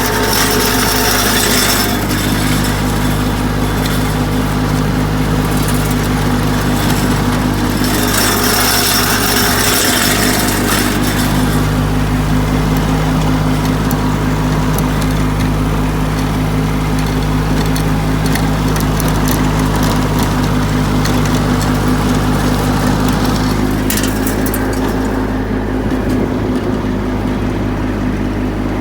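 Riding lawn tractor engine running steadily while towing a lawn sweeper.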